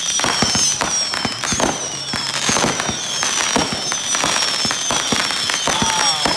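Consumer fireworks cakes going off in a steady run of crackling pops and bangs, with a high whistle falling in pitch about once a second.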